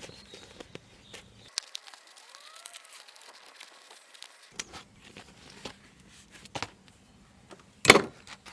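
Foam sound-insulation sheet being cut and handled: scattered small crackles and clicks, with one louder crinkling rustle near the end.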